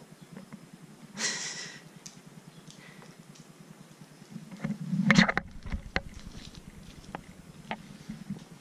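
A Pembroke corgi sniffing at a fidget spinner on a hard floor, with a short sniff about a second in, a thump around five seconds in and scattered light clicks of claws afterwards. A faint low steady hum sits underneath.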